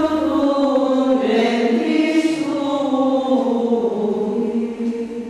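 Unaccompanied choir singing a slow chant in long held notes that move gently from one pitch to the next.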